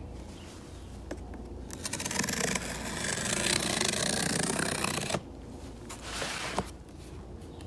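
A folding pocket knife slitting the packing tape along the seam of a cardboard box: a steady scraping hiss of blade through tape and cardboard that lasts about three seconds and stops abruptly, with lighter handling scrapes and clicks before and after.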